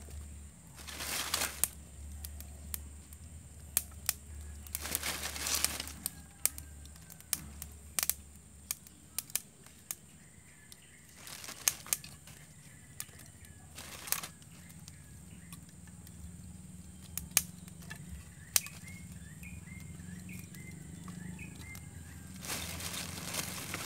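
Small wood fire of kindling and charcoal crackling with scattered sharp pops, while lumps of charcoal are handled and set on it, with several brief rustles of a plastic bag. Small birds chirp repeatedly in the background in the second half.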